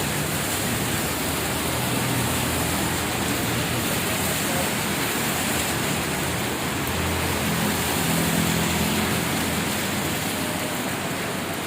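Heavy rain pouring down steadily as a constant hiss, with the low hum of vehicle engines in traffic underneath, a little stronger about eight seconds in.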